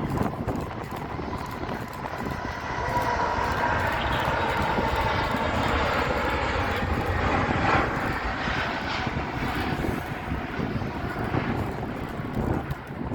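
Airbus A380 jet airliner passing, its four jet engines making a broad rushing noise with a whining tone. The noise swells about three seconds in, is loudest around eight seconds, then eases off.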